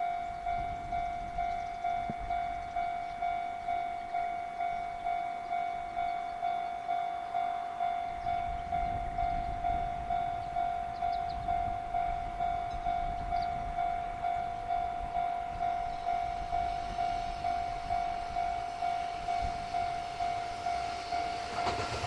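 Japanese level-crossing warning bell ringing steadily, about two strikes a second. Near the end, the noise of an approaching EF210 electric locomotive and its container train rises quickly as it nears.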